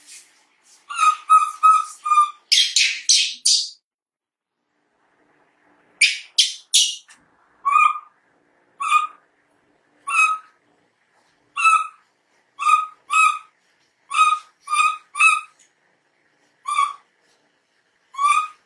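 Baby monkey crying: short, high calls repeated about once a second, with clusters of harsher screeching calls about two to four seconds in and again around six seconds in.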